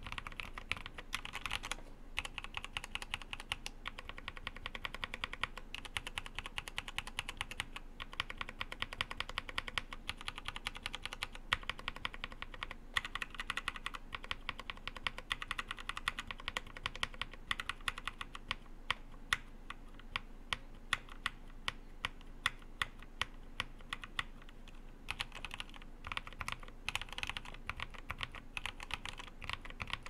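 Rapid, continuous typing on a GK64 hotswap mechanical keyboard with Kailh Speed Silver linear switches, a dense clatter of keystrokes. The switches from the J key rightward are lubricated and those to the left are dry, so both sounds are mixed together.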